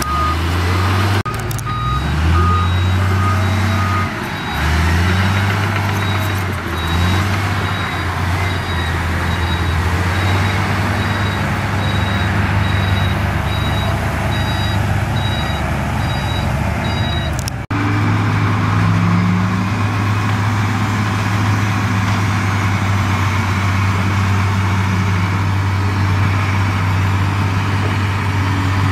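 Heavy diesel engines of earthmoving machines running and revving several times, with a reversing alarm beeping steadily over them. About 18 seconds in the sound changes abruptly to a steady engine run without the beeping.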